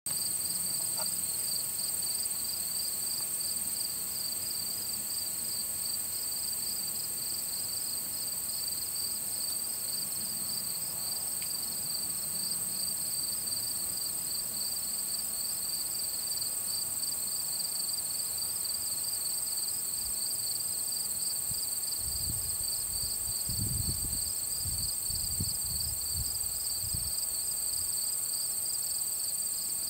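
Chorus of field crickets and other insects singing in dry late-summer grass: a steady pulsing trill over a continuous high buzz. A few brief low rumbles come through near the end.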